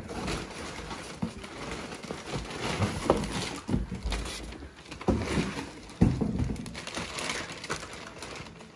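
Wrapping being pulled out of a cardboard box and torn open: irregular crinkling and rustling, with a few sharper bumps from handling the box.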